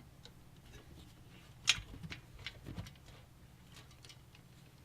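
Scattered small clicks and scrapes of hand work inside a computer case while a screw is being driven, with one sharper click about a second and a half in.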